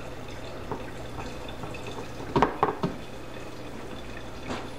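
Pieces of biscuit dough dropped into hot chicken broth in a slow cooker, plopping and splashing, with three quick splashes about halfway through, over a low steady hum.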